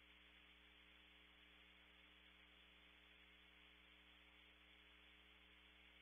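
Near silence: a faint, steady electrical hum and hiss, with nothing else happening.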